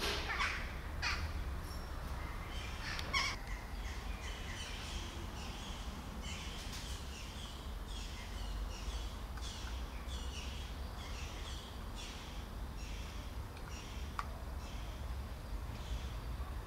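A cat and a kitten eating wet food from a plastic tub: a steady run of wet chewing and smacking, about two a second, after a few sharper clicks near the start.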